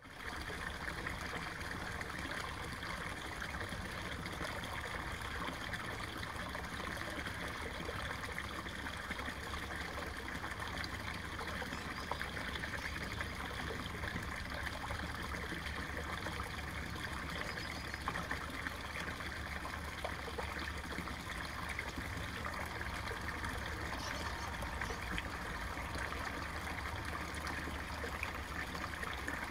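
Water from a small garden-pond waterfall running steadily down the rocks into the pond.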